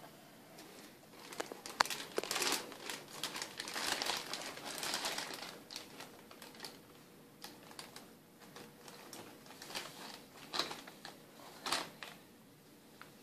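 Thin clear plastic bag crinkling and rustling as hands rummage through it and lift out a piece of live rock, in irregular bursts that are busiest in the first half, with a few more near the end. One sharp click stands out about two seconds in.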